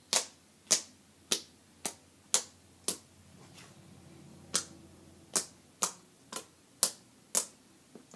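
Clicky slime popping as it is worked: about a dozen sharp clicks, roughly two a second, with a pause of about a second and a half near the middle.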